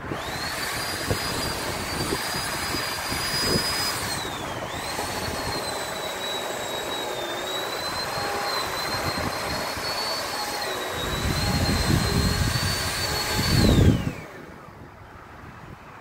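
Two-stroke chainsaw running at high revs, cutting the spruce trunk. The revs drop and pick up again about four seconds in, then the engine winds down near the end, just after its loudest moment.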